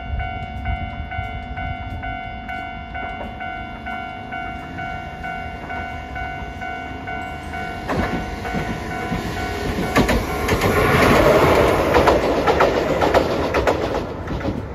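Japanese level-crossing warning bell ringing in a rapid, even rhythm. Then a Hiroden tram passes over the rails with clattering wheels, growing louder through the second half.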